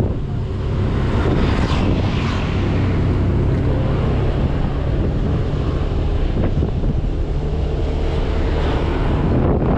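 Wind rushing over the microphone of a camera on a moving motorcycle, with the motorcycle's engine and road noise underneath.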